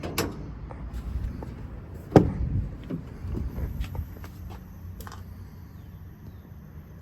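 Scattered metal clicks and knocks from handling the service truck's body and compartments, with one heavier thud about two seconds in, over a low steady hum.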